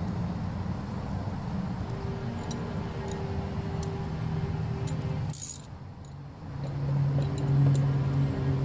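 Light metallic clinks of a mower blade's centre bolt being handled and threaded by hand onto the deck spindle while the blade is reinstalled, with one sharper clink about five seconds in. Steady low tones run underneath.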